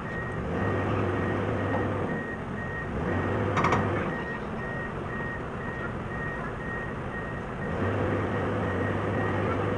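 Reversing alarm on heavy machinery sounding a steady run of short, single-pitch beeps over a diesel engine that grows louder in spells. A sharp metallic clank comes about a third of the way in.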